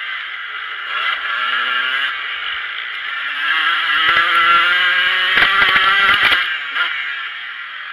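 Motocross bike's engine under hard throttle, heard from a camera on the bike. The revs climb about a second in and again from about three seconds, with a run of sharp clattering knocks between about four and six seconds, the loudest part, before easing near the end.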